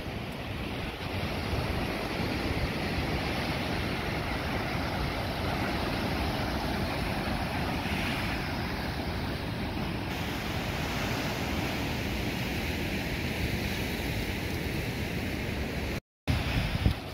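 Ocean surf breaking and washing over a sandstone rock shelf, a steady rushing wash, with wind on the microphone. The sound cuts out briefly near the end.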